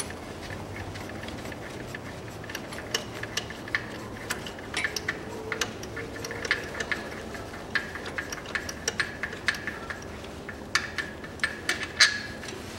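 Ratchet wrench clicking in short, irregular runs as it loosens the engine-mount and engine-to-gearbox bolts.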